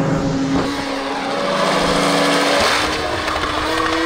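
Riderless snowmobile engine running hard at high revs on a stuck throttle, a steady droning note whose pitch rises a little about three seconds in.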